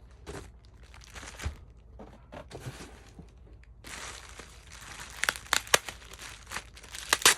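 Packaging crinkling and tearing as a package is opened by hand. It is faint at first, then denser, with a few sharp crackles about five seconds in and again near the end.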